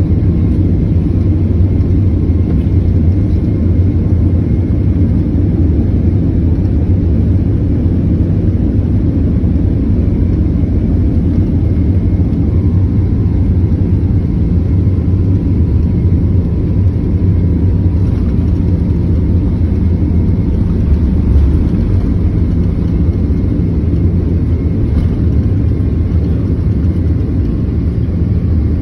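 Steady, loud low rumble of a jet airliner heard from inside the passenger cabin, with faint steady hums higher up.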